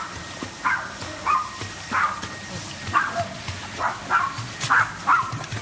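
A dog yipping over and over in short, high barks, about two a second.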